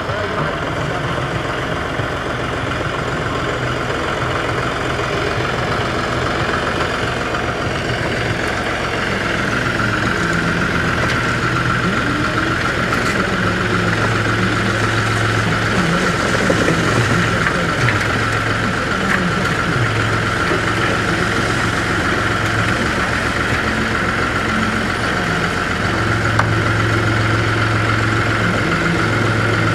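John Deere utility tractor's diesel engine running steadily as its front loader works a bucket of dirt over a raised bed. A steady high whine joins about nine seconds in and holds, and the low engine note swells and eases several times.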